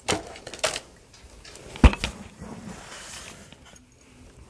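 Damp potting soil being scooped with a mug and tipped into a cut-open plastic jug: a few sharp knocks and scrapes, one dull thump about two seconds in, then soft rustling of soil.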